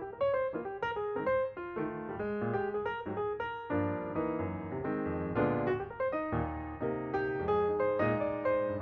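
Background music: piano playing a flowing melody over chords, notes struck and left to ring.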